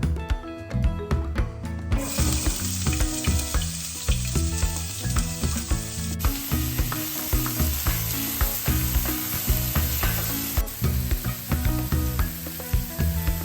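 Food sizzling as it fries in hot oil in a pan, starting about two seconds in, over background music with a steady beat.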